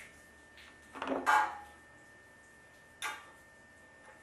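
Two handling noises from copper pipe and fittings being handled: a brief clatter about a second in and a sharp click about three seconds in.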